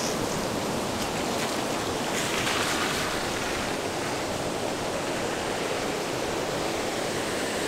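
Parvati River whitewater rushing over boulders, a steady, even rush.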